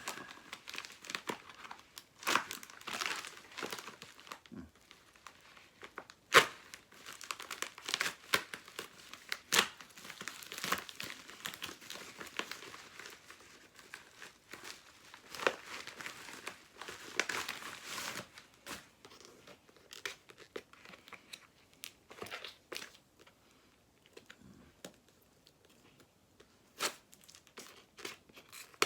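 Packaging of a mystery pack being crinkled and torn open, with painter's tape being peeled off, in an irregular string of sharp crackles and snaps. They come thickest for the first two-thirds, then thin out.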